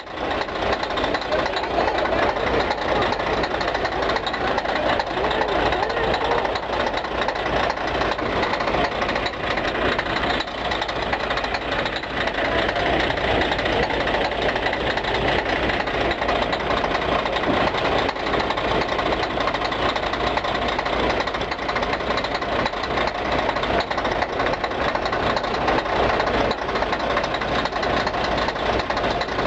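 Scania K113CL bus's 11-litre DSC11 straight-six diesel running steadily with a hoarse sound, with no revving.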